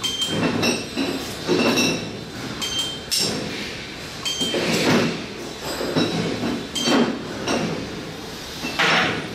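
Irregular metallic clinks and knocks, one or two a second, several ringing briefly like small steel parts striking one another, with a louder clatter near the end.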